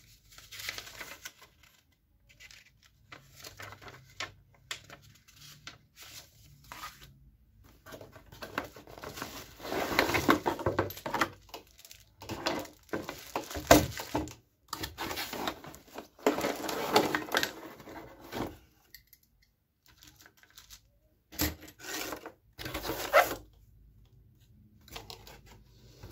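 Irregular crinkling and rustling of a plastic bag and cardboard packaging as a boxed electric nailer-stapler is unpacked by hand, with a sharp knock about halfway through.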